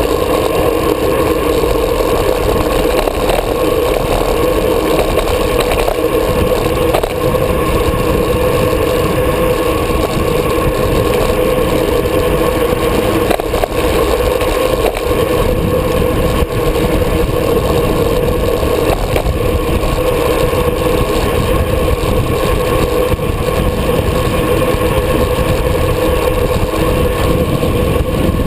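Wind rushing over a handlebar-mounted GoPro on a road bike at speed, mixed with tyre noise on asphalt: a loud, steady rush with a constant hum through it.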